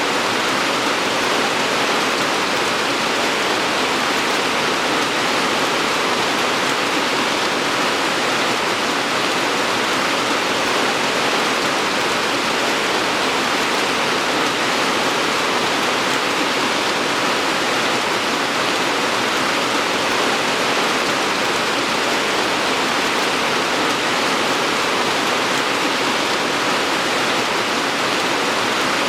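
Steady rainfall: a continuous, even hiss with no single drops or other sounds standing out.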